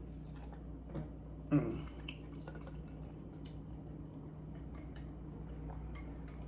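A person chewing food close to the microphone: faint wet mouth clicks and smacks over a steady low hum, with one brief louder mouth sound about one and a half seconds in.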